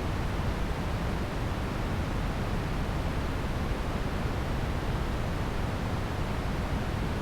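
Pink noise: a steady, even hiss, heavier in the lows, played as a focus aid for ADHD.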